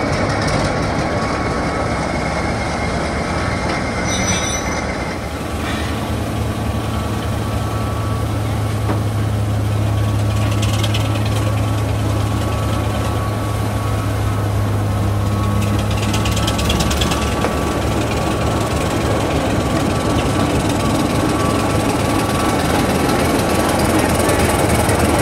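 Class 25 diesel locomotive's Sulzer six-cylinder engine running as the locomotive moves slowly along the track. It gives a steady deep drone that grows heavier for several seconds in the middle. A thin steady whine sits above it, with short hisses about eleven and sixteen seconds in.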